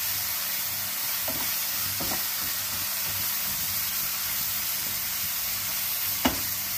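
Onion-tomato masala with ground spices sizzling and frying in a nonstick pan while a wooden spatula stirs and scrapes through it, with one sharp knock near the end.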